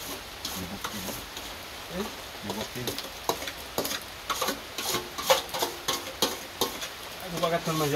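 Metal spoon scraping and clinking against the inside of a metal pot in quick repeated strokes as cooked food is scooped out onto a plate.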